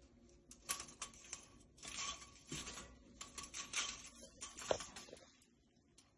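Thin venetian blind slats clicking and rustling irregularly as they are held bent apart by hand, stopping about five seconds in.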